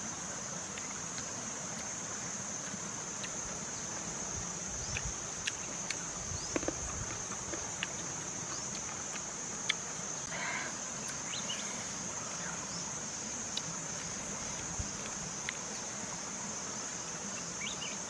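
Steady high-pitched insect drone, with scattered small clicks and rustles as fruit and a leaf are handled.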